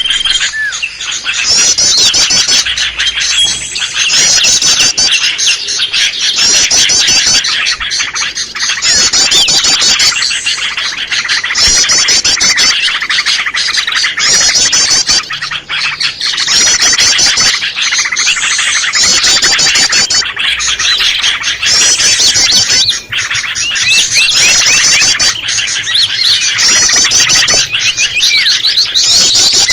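Bird-lure recording of a mix of small songbirds calling all at once, a dense, busy chatter of chirps. A high, rapid trill repeats every couple of seconds over it.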